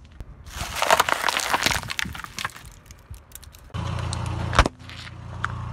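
Car tyre rolling over brittle objects and crushing them: a dense run of cracks and crackles lasting about two seconds. Later a car engine runs steadily, with one sharp snap, then continues more faintly.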